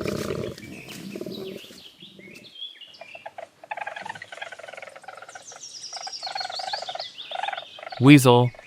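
Koala calling: a loud low call at the start, then a run of short, high, wavering squeaks and cries.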